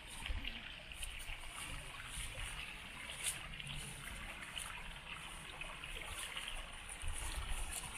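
A shallow stream babbling and trickling steadily, with low gusts of wind rumbling on the microphone near the start and again near the end.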